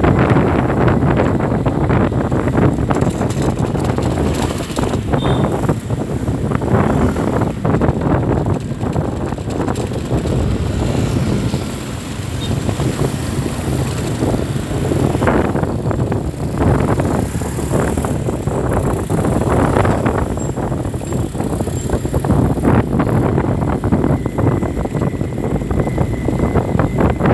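Steady traffic noise, with vehicle engines running and wind gusting on the microphone.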